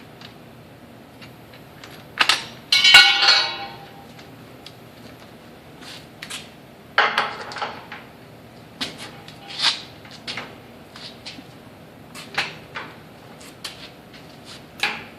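Steel hand tools being handled: sockets, adapters and a torque wrench clinking and knocking together. There is a loud ringing metal clatter about three seconds in, another around seven seconds, and scattered single clinks after.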